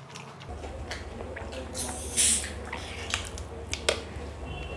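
Screw cap of a plastic Pepsi bottle twisted open: a short, sharp hiss of escaping carbonation about two seconds in, with a few sharp clicks after it.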